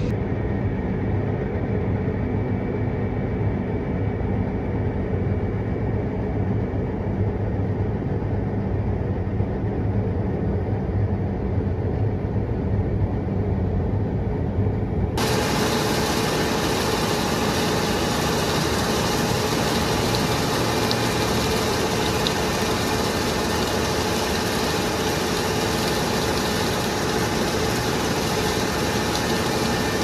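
Tractor engine droning steadily, heard from inside the cab. About halfway through it changes abruptly to open-air harvest machinery: a John Deere combine harvester running alongside while its unloading auger fills the grain cart, a steady rumble and hiss with a constant hum.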